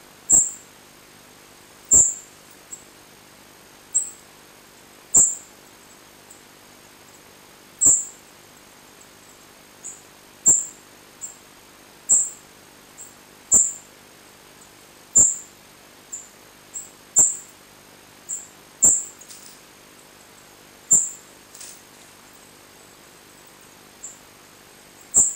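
A songbird giving short, very high chirps, a dozen or so loud ones one to two seconds apart, with fainter chirps in between.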